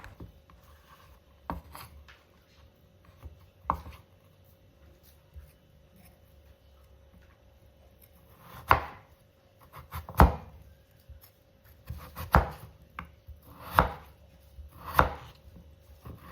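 Kitchen knife cutting potatoes on a cutting board: single, unevenly spaced chopping strokes, a few faint ones at first and louder ones through the second half.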